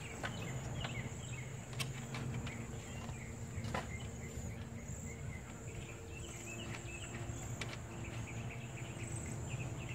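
Steady high-pitched insect drone over a low steady hum, with a few faint clicks as plastic retaining clips are pressed back in by hand.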